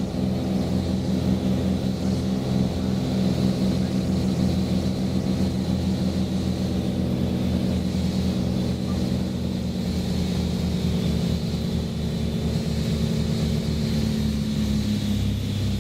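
Cessna 310's two six-cylinder piston engines and propellers heard from the cockpit, running steadily with a pulsing beat between the two engines. The propellers are in fine pitch for landing, and the engine note drops a little in the second half as the throttles are eased back.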